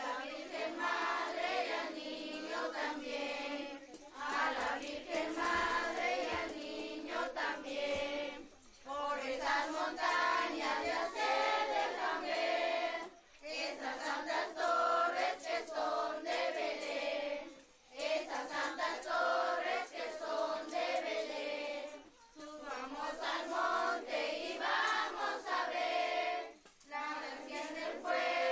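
A group of children singing a posada song together in unison, in phrases of about four seconds with short breaks for breath between them.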